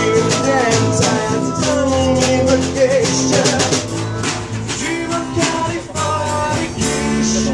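Live acoustic band playing: strummed acoustic guitars with steady strokes on a marching drum and cymbal, and a singing voice over them.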